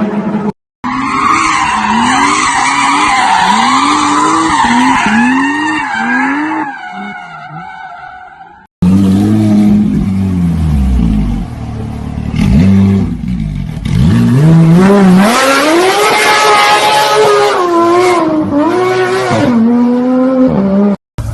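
Porsche sports cars drifting, in two clips cut together. In the first, tyres squeal over engine revs rising and falling again and again, then fade out. After an abrupt cut, an engine revs hard with tyres skidding, its pitch climbing and then wavering.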